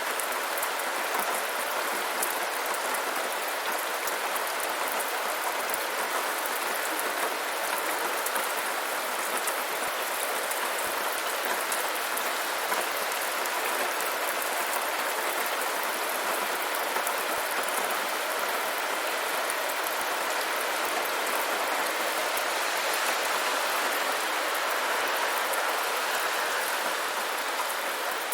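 Steady rainfall: a dense, even hiss of rain with fine patter of drops.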